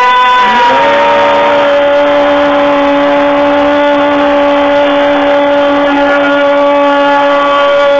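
A long drawn-out 'yaaam' toast cry held on one steady note, the start of a yam seng cheer. A higher voice fades away in the first second or two.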